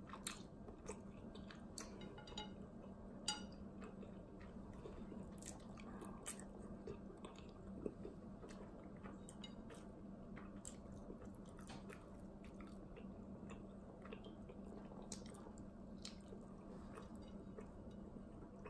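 Faint close-up eating sounds: someone chewing seafood boil food, with scattered small wet clicks and smacks. A low steady hum runs underneath.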